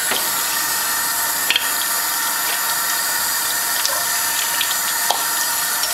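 Kitchen tap running in a steady stream, with a couple of light knocks about a second and a half in and near the end.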